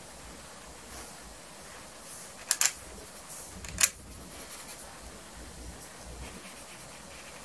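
Three sharp clicks, two close together about two and a half seconds in and one near four seconds, from a watercolour brush knocking against the palette as it is loaded; otherwise faint room hiss.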